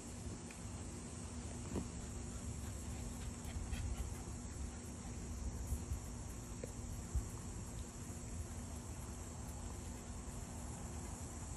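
Insects chirring steadily in a faint, high background drone, with a couple of soft taps.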